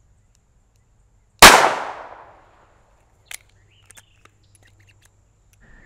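A single .22 LR revolver shot, Federal Punch ammunition from a 3-inch barrel, a sharp crack about a second and a half in whose echo fades over about a second. A few faint clicks follow.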